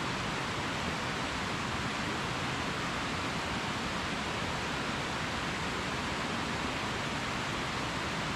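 Steady rushing of a small creek cascading over rocks.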